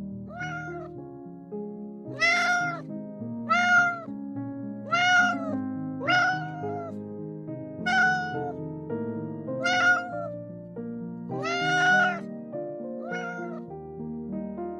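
A cat meowing about nine times in a row, each meow short with a rise and fall in pitch, over steady background music.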